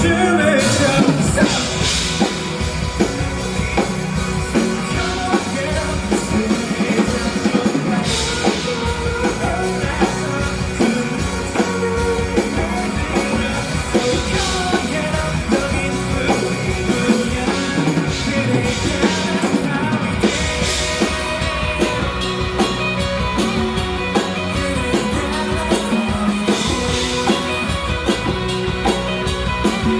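Live band playing a rock song, with a drum kit driving a steady beat under guitar and bass.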